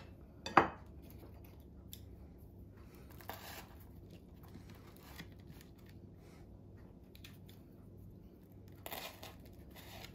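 Quiet handling sounds of hands working on burgers on a plate, pressing down the buns and pushing toothpicks through them. A single sharp knock comes about half a second in, then scattered soft rustles, and a short rustling burst near the end.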